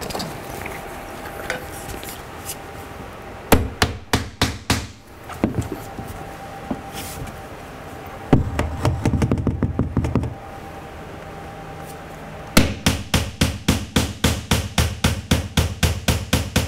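Claw hammer driving a finish nail through chair rail molding into the wall: a quick burst of blows about four seconds in, a busier stretch around nine seconds, then a steady run of about twenty blows, about five a second, to finish.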